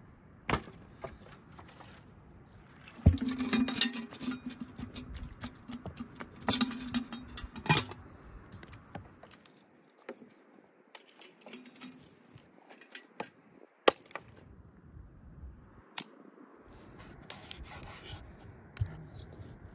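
Dry tree branches being chopped and snapped with a hatchet: sharp knocks and cracks, the loudest about three seconds in, with scraping and rattling as the branches are dragged and broken. Near the end, a knife slices raw fat on a wooden cutting board.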